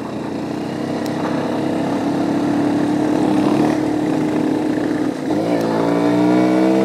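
Dual-sport motorcycle engine pulling hard up a steep trail climb, growing louder over the first few seconds. About five seconds in, the revs dip briefly and then rise steadily again.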